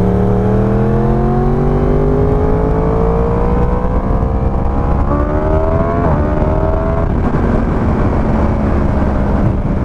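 Yamaha R1 sportbike's inline-four engine, fitted with an aftermarket exhaust, pulling hard through the gears. Its pitch climbs steadily, drops at an upshift about five seconds in, climbs again, and drops at a second upshift about seven seconds in before it settles at a steady cruise.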